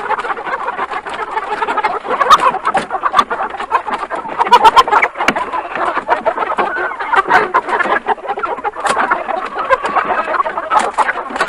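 A dense, chaotic clamour of animal-like squawks and clucks shot through with sharp clicks, with no steady beat. It starts abruptly and stays loud throughout.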